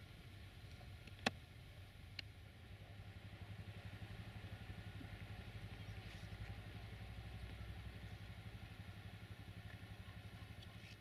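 A faint, low engine rumble with a fast, even pulse that builds over a few seconds and then fades away, like a motor vehicle passing at a distance. A single sharp click comes about a second in.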